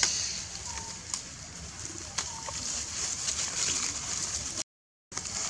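Outdoor ambience: a few short, thin animal calls over a steady high hiss, with a couple of sharp clicks; the sound cuts out completely for a moment near the end.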